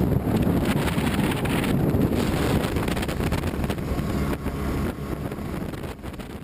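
A 36 HP Prodrive surface-drive mud motor running at speed, turning a prototype three-blade propeller, with heavy wind noise on the microphone. The sound fades down near the end.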